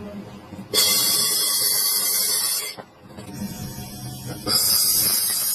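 A steady hiss, heard twice, each time lasting about two seconds and starting and stopping sharply, with faint low rustling between.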